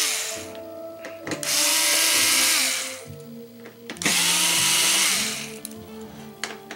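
Cordless drill/driver backing screws out of a TV's plastic back cover in two runs of about a second and a half each, the motor winding up and then slowing at the end of each run.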